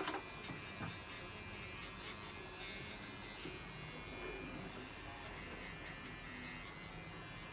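Small electric pet clipper buzzing steadily as it trims the fur between a cat's paw pads.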